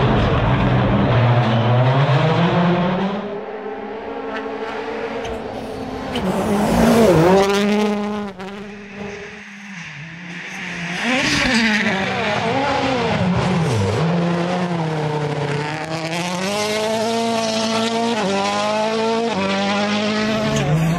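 Rally car engines revving high and shifting through the gears as the cars pass at speed. The pitch climbs and drops over and over, with a quieter stretch about ten seconds in.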